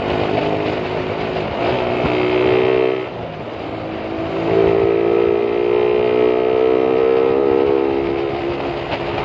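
Single-cylinder motorcycle engine pulling under throttle on the move, its pitch climbing slowly. About three seconds in the revs drop away briefly, as at a gear change, then it pulls again with a steadily rising pitch.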